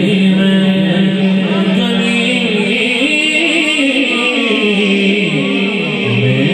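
Man singing a manqabat (Urdu devotional song) into a microphone, drawing out long held notes that slide slowly in pitch.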